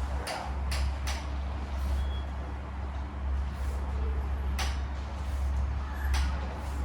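Steady low hum with a few sharp clicks: three close together near the start and two more in the second half.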